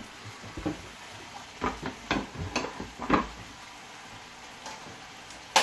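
Kitchen clatter: a series of knocks and clinks of utensils and cookware being handled, ending in a sharp click, over faint sizzling from the frying pan of beef tibs.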